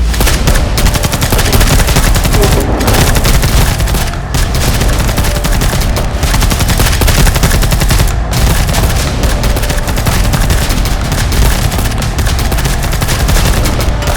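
Rapid, continuous gunfire: many shots overlapping as in a firefight, with background music under it and brief lulls a few times.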